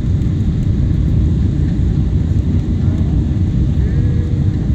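Cabin noise of a Boeing 777-300 on final approach with flaps extended: a steady low rumble of engines and airflow.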